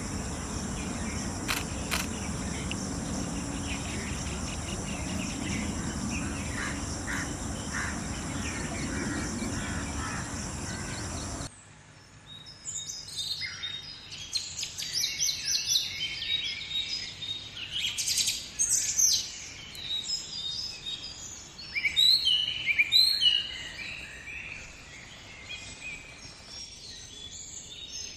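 Steady outdoor background with a constant high insect drone, which cuts off abruptly about eleven seconds in. After the cut come the overlapping chirps and short songs of several small birds.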